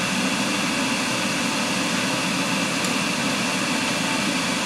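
Steady mechanical drone with a broad airy hiss, a fan-type air machine running without change.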